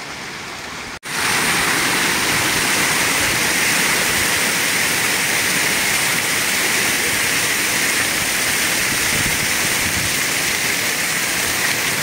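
Fountain water jets splashing, a steady rushing hiss of falling water. It drops out for a moment about a second in and comes back louder, from an arch of jets spraying over a paved walkway onto floor grates.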